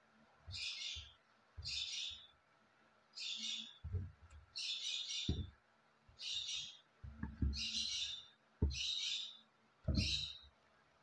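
A bird calling over and over, a short harsh chirp about once a second, with a few soft knocks and rustles from the sneakers being handled.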